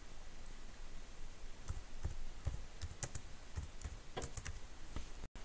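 Computer keyboard being typed on: a quick, uneven run of about a dozen keystrokes, starting about a second and a half in.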